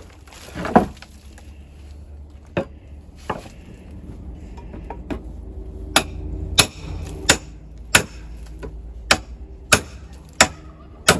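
A hammer knocking at weathered deck lumber while a deck is pried apart: about a dozen sharp strikes, irregularly spaced roughly a second apart.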